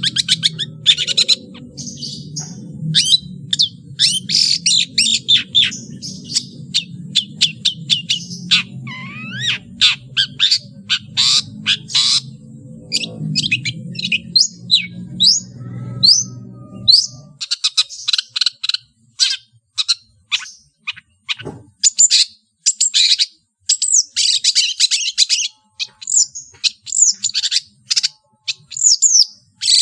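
Long-tailed shrike (cendet) singing a fast, varied song of short high chirps, trills and sliding whistles strung together from mimicked calls of other birds. A low steady hum runs underneath and stops a little past halfway.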